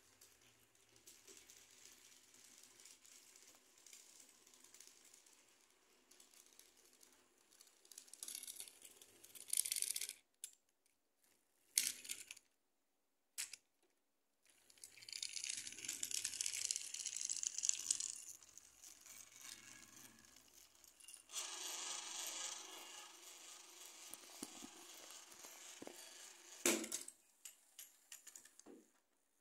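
Battery-powered toy train rattling along plastic track, its small geared motor and wheels clattering in several louder stretches, with a few sharp clicks of plastic cars and a short break where it stops.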